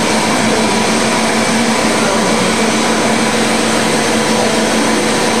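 KBA Rapida four-colour B2 sheetfed offset press running while printing: a loud, steady mechanical din with a constant hum running through it.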